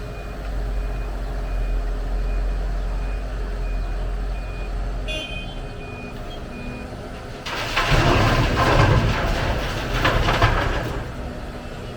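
Heavy diesel machinery running steadily, with a reversing alarm beeping at an even pace through the first half. About seven and a half seconds in, a loud rumbling rush lasting about three seconds: a bucket load of dirt dumped into a truck bed.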